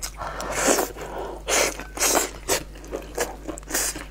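A person biting and chewing braised pork knuckle close to the microphone, in a run of short bursts about every half second.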